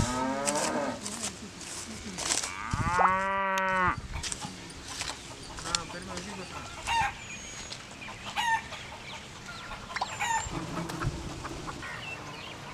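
Farmyard animals: a cow moos once for about a second, about three seconds in, with hens clucking and birds chirping around it.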